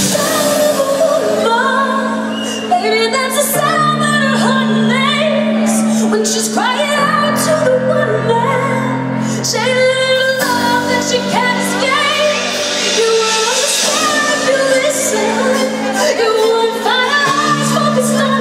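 Live pop music: a woman singing over a band, with held low chords that change every few seconds.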